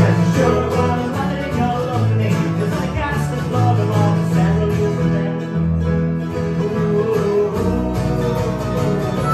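A live acoustic folk band playing: strummed acoustic guitar, fiddle and harmonica over sustained low notes.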